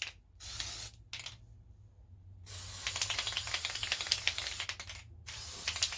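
Testors oil-based sapphire blue paint being spray-painted onto model parts: hissing spray in short bursts, a pause of about a second, then a longer spray of a couple of seconds and another burst near the end.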